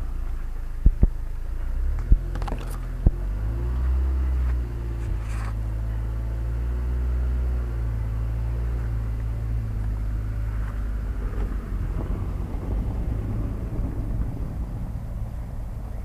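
Low rumble and hum of a running motor vehicle engine, steadiest between about two and ten seconds in, then easing off. A few sharp knocks in the first three seconds.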